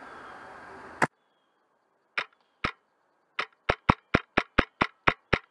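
Airsoft rifle firing single shots: two spaced snaps, then a quick string of nine at about four a second. A second of rustling ending in a sharp click comes first.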